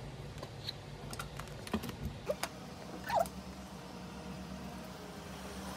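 Light clicks and taps of a plastic food container and a kitchen knife handled on a wooden cutting board as a set agar milk jelly is turned out and cut, with a short squeak about three seconds in; it goes quieter after that.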